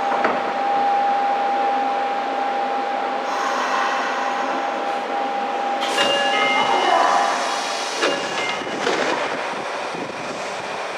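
Nagoya Municipal Subway 2000-series train braking into a station, a steady motor whine that wavers and drops away about seven seconds in as the train comes to a stop. A sharp hiss follows about six seconds in and a clatter about eight seconds in, as the doors open.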